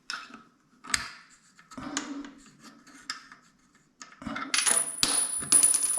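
Small metal parts clinking and rattling: a few separate clinks about a second apart, then a denser clatter starting about four seconds in, with a thin high tone over it.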